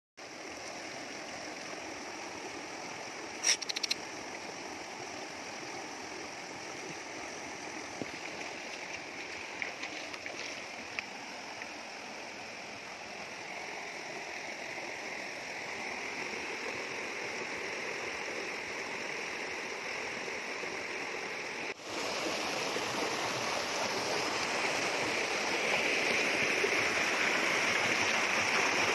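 Shallow rocky stream rushing and splashing over rocks and small rapids, a steady water noise that grows louder in the second half. A single sharp click sounds about three and a half seconds in.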